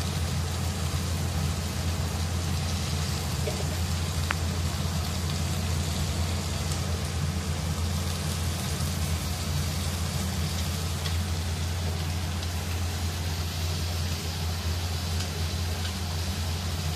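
Green peas and meat frying in a wok over a gas burner, sizzling steadily, with the low, even rumble of the gas flame beneath.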